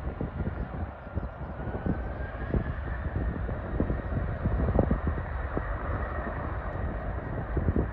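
Jet airliner engines, a steady rumble with a faint rising whine in the first few seconds, over low buffeting thumps of wind on the microphone.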